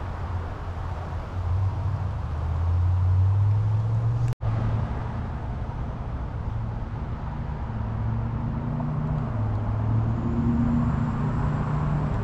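A motor engine drones at low pitch, rising and falling slowly, under wind buffeting the microphone. The sound cuts out completely for an instant about four seconds in.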